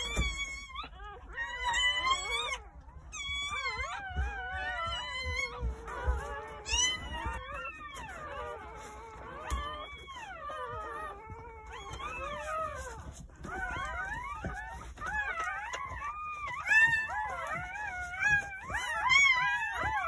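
Newborn Jindo puppies crying: several high, wavering squeals overlapping almost without a break, rising and falling in pitch.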